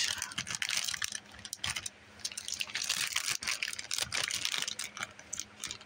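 Plastic toy package being handled and opened, with irregular crinkling and crackling that pauses briefly about two seconds in.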